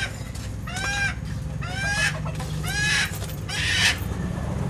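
A live desi (country) chicken squawking loudly in distress while it is held for slaughter, about five times, roughly once a second, each call rising and then falling in pitch.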